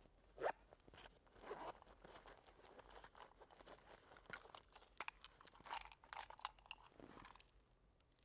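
Irregular crunching and crackling snaps from hands working dry tinder and kindling for a campfire, stopping about seven and a half seconds in.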